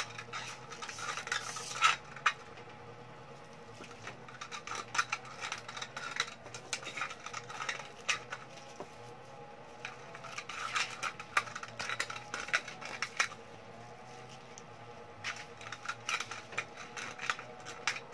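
Scissors snipping through a thin aluminium drink can, trimming the cut edge level. The rapid snips come in four bursts with short pauses between.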